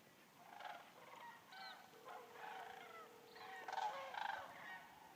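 Geese honking, a run of short repeated calls. A steady single-pitched tone sounds for about two seconds in the middle.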